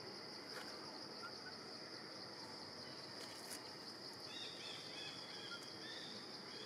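Steady high-pitched insect chorus in forest ambience, with a few faint chirping calls about four to five seconds in.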